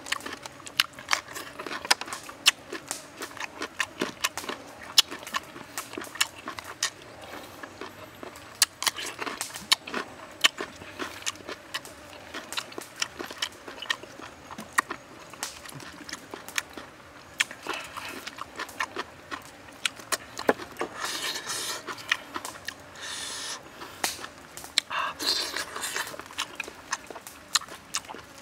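Close-miked chewing and lip-smacking while eating grilled octopus: a continual run of wet mouth clicks and smacks, several a second.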